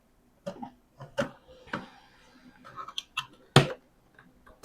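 A series of sharp hard-plastic clicks and knocks, the loudest about three and a half seconds in, as the filter and housing of a Dirt Devil upright vacuum are handled and snapped into place.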